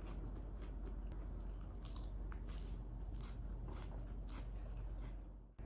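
Someone chewing crunchy food close to the microphone: a series of short, crisp, irregular crunches that cut off abruptly near the end.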